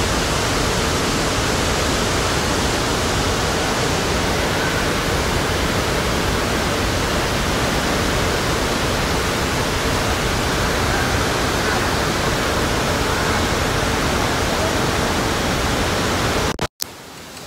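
Steady loud rush of churning water in an indoor lazy river, an even noise with no rhythm, cutting off abruptly near the end.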